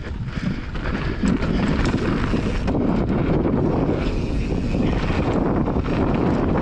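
Wind rushing over the camera microphone and mountain-bike tyres rolling fast on a packed dirt trail, a steady low rumble with a few light ticks and rattles from the bike.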